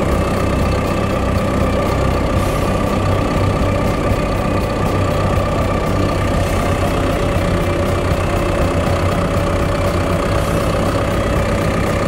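Cat F2 backhoe loader's diesel engine idling steadily with the engine hood raised: an even low rumble with a steady whine over it.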